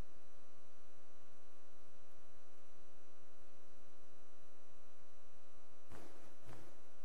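Steady electrical mains hum from the room's sound system, with no speech. About six seconds in come two short noises half a second apart, like rustling or handling on the microphone.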